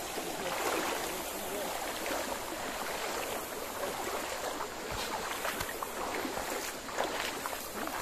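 Shallow stream running over stones, a steady rushing water noise, with a few brief knocks around the middle.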